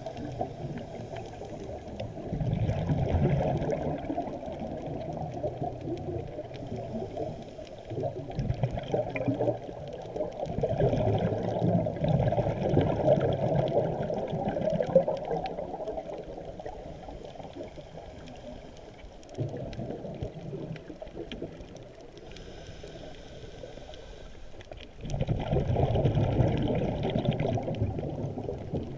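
Muffled underwater bubbling and rushing water heard through an underwater camera housing, coming in about five surges a few seconds long that rise and fall.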